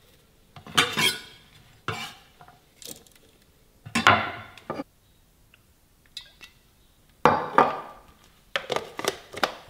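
Kitchen clatter: several separate clinks and knocks of dishes and a blender jar being handled as shallots, garlic and chilies are put in for blending, with short pauses between them.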